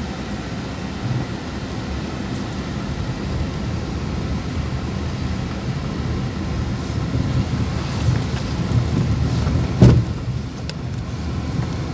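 Steady low rumble of a car driving slowly, heard from inside the cabin, with a single loud thump near the end.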